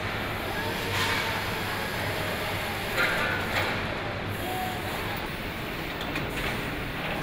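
Truck assembly-line factory noise: a steady machinery hum with a few sharp clanks, one about a second in and two around three seconds in.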